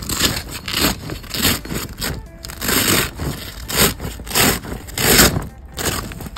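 The coated fabric of an inflatable air cushion's cover is pulled and rubbed by hand, giving about ten scraping, rustling strokes roughly half a second apart.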